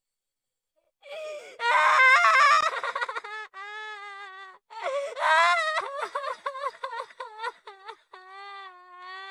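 A high-pitched anime-style girl's voice crying: after about a second of silence come loud wavering wails around two seconds in and again near five seconds, then short broken sobs, and a long, even whimpering tone near the end.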